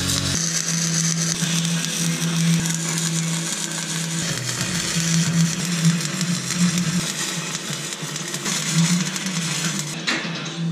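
Angle grinder running on steel angle iron: a steady motor hum under a harsh, hissing grind that swells and eases as the disc is worked against the metal.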